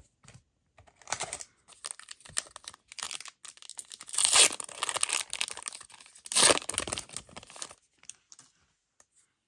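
A Disney Lorcana booster pack wrapper being torn open and crinkled. The sharpest rips come about four seconds in and again around six and a half seconds.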